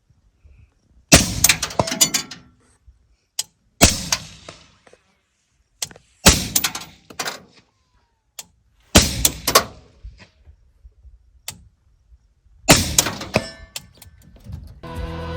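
Five single rifle shots from an Aero Precision M4E1 AR-15-type rifle firing 5.56 M855 ammunition, fired slowly at intervals of about two and a half to four seconds. Each is a sharp crack with a trailing echo. Music comes in near the end.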